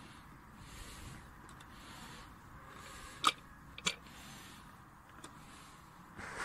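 Metal telescope-tripod leg-spreader braces handled and pushed open, giving two sharp clicks about half a second apart a little past the middle, over a faint rustling hiss.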